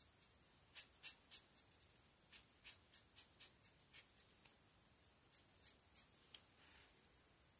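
Copic marker nib scratching across paper in short, quick strokes, about a dozen, filling in a black area of an ink drawing, with one longer stroke near the end. Faint.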